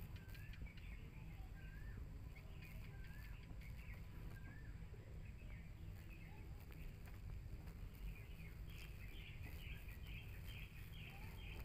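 Faint outdoor birdsong. A bird repeats a short wavering whistle every second or so through the first few seconds, then higher chirps come quickly one after another over the last few seconds, above a steady low rumble.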